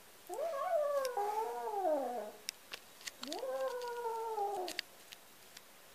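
Black cat giving two long, drawn-out yowls, one after the other. Each rises, holds and then slides down in pitch. A few faint clicks fall between them. The cat is an angry grumbler, complaining.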